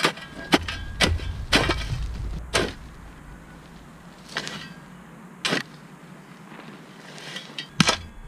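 Homemade long-handled steel shovel chopping and scraping into a pile of dry dirt and gravel, with soil and stones thrown off. About eight sharp strikes come unevenly, four of them in the first two seconds and the rest spread through the remainder.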